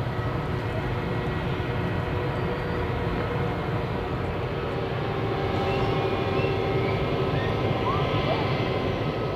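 Airbus A319 airliner's jet engines running at low taxi power as the aircraft rolls slowly past: a steady rumble with constant whining tones, growing slightly louder about two-thirds of the way in.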